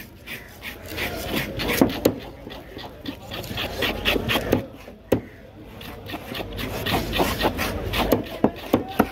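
A large knife cutting up a cobia on a wooden board: scraping and slicing through flesh and bone, with repeated sharp knocks of the blade on the wood. A few short pitched calls sound in the background.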